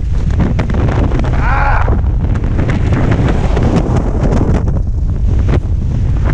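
Heavy, steady wind rushing over a helmet camera's microphone as a skydiver flies under an open ram-air canopy.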